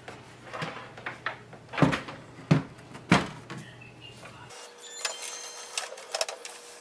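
HP Envy 6455e printer being handled and pushed across a wooden tabletop, with three loud knocks. Then the printer powers on: a steady whir and a run of small mechanical clicks as its mechanism starts up.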